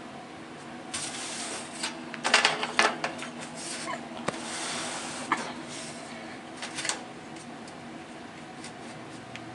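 Edison box fan running with a steady hum, with bursts of rattling and several sharp clicks and knocks from about a second in until near the seven-second mark, loudest around the third second.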